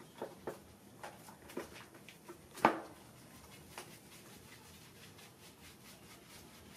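Soapy hands rubbing lather into a monkey's wet fur: faint wet squishes and small clicks, with one sharper smack about two and a half seconds in.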